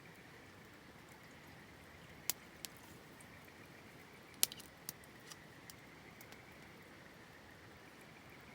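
Wood campfire crackling: scattered sharp, irregular pops over a faint steady hiss, the loudest pop about four and a half seconds in.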